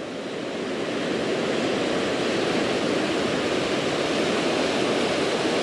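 Ocean surf breaking and washing up the beach: a steady rush of waves and foam that grows a little louder over the first two seconds.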